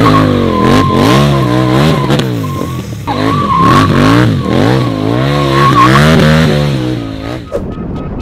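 Race-car engine sound effect revving up and falling back again and again, with a steady high tyre-squeal-like screech running alongside. It drops away about seven seconds in.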